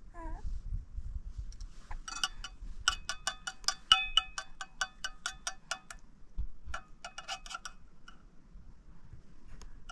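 Metal spoon stirring rice milk in a plate, clinking against the plate in quick ringing taps, about five a second, with a short pause about six seconds in.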